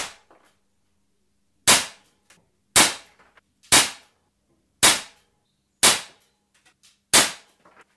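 Umarex Glock 19 CO2 BB pistol firing seven semi-automatic shots, roughly one a second, each a sharp pop that dies away quickly. A few faint ticks follow most shots.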